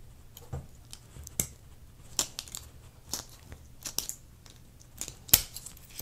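Leatherman Raptor steel shears snipping and crunching through a thin metal bottle cap: a series of sharp, irregular clicks and cracks, the loudest about five seconds in.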